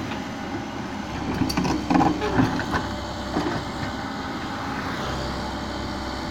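Komatsu PC130 hydraulic excavator's diesel engine running steadily, with a cluster of knocks and clanks from about one and a half to three and a half seconds in as the arm and bucket move.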